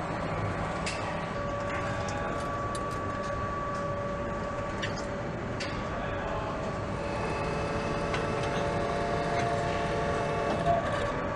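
Factory assembly-line ambience: a steady machinery hum with two held whining tones, sprinkled with short metallic clicks and taps, and a sharper knock near the end.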